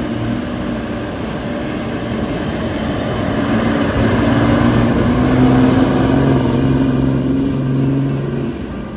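A bus's engine running as it passes close by, growing louder to a peak about halfway through and easing off near the end.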